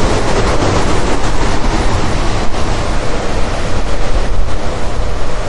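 Cyclone sound effect: loud, steady rushing storm-wind noise, heavy in the low end.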